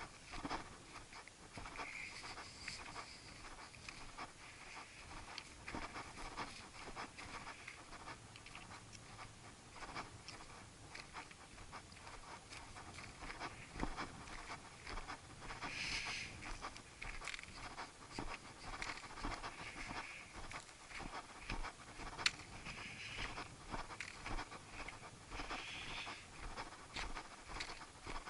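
A hill walker's footsteps on a stony path, irregular crunching steps with breaths every few seconds.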